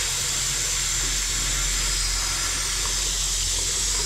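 Bathroom sink tap running in a steady stream, the water splashing over a hand and into the basin.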